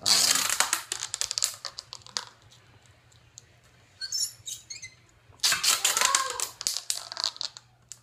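Stan's No Tubes adhesive rim tape being pulled tight off its roll, a rapid crackling peel in two spells: one about two seconds long at the start, the other starting about five and a half seconds in.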